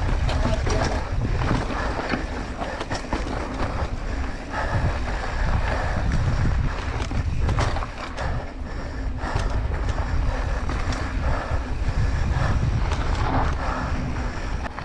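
Wind buffeting the microphone during a fast downhill ride, over a constant low rumble with frequent sharp rattles and knocks from the rough ground.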